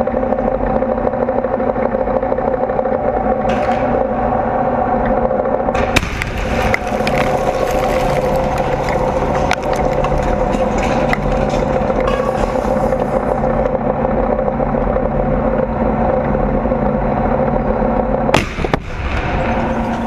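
Tank engine running with a steady drone. About six seconds in comes a sharp blast, the RPG-29 strike on a nearby tank, followed by several seconds of hissing, crackling noise.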